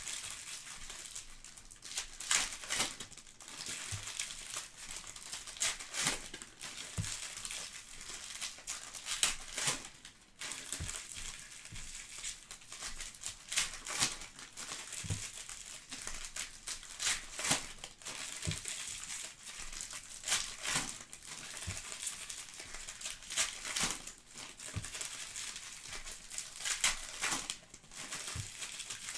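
Plastic foil trading-card pack wrappers crinkling and tearing as Panini Prizm packs are opened by hand, with many sharp crackles throughout.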